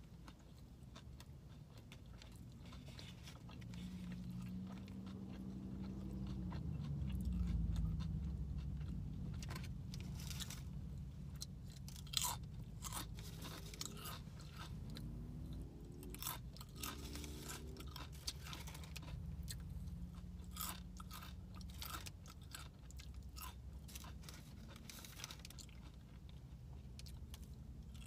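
Close-up chewing and crunching of SunChips multigrain chips and chip crumbs, with many crisp crackles through the second half. A low rumble swells early on and is loudest about seven seconds in.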